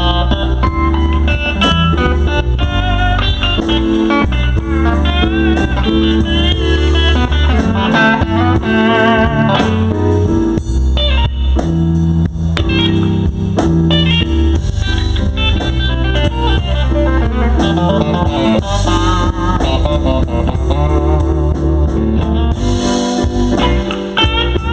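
Slow blues instrumental: a lead electric guitar plays a solo of bent and wavering vibrato notes over bass and drums.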